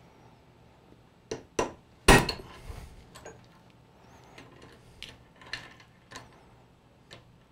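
Hammer striking a steel pin punch to drive the pin out of a motorized-bicycle roller chain held in a bench vise: two quick blows, then a harder one about two seconds in that rings on briefly. Lighter metal clinks follow as the chain and punch are handled.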